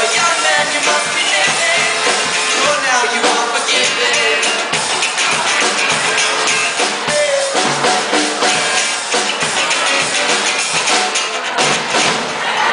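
A band playing a song, with a drum kit keeping a steady beat under a singing voice.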